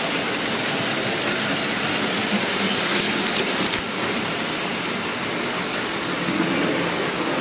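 Märklin H0 model trains running around the layout: a steady rolling rattle of small electric motors and wheels on metal track.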